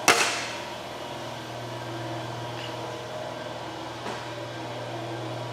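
A single sharp knock with a short ring right at the start, then a steady low mechanical hum with a faint click about four seconds in.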